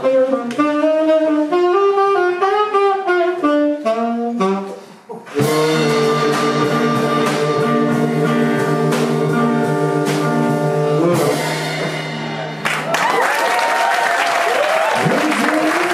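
A live blues band's saxophone plays a closing melodic phrase, then the band holds a long final chord for about seven seconds. Audience applause breaks out as the chord stops.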